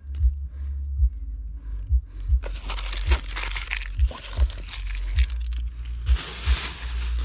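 Crunching, crinkling handling noise in two stretches, starting about two and a half seconds in and again louder about six seconds in, over a low steady hum with soft regular thumps.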